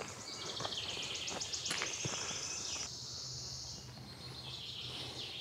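Insect chirring in the forest: a high, rapid trill that runs for about three and a half seconds, stops, and starts again near the end. A few light footstep crunches on the path in the first two seconds.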